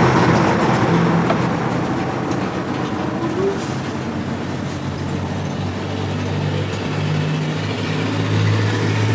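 A machine running steadily with a low hum.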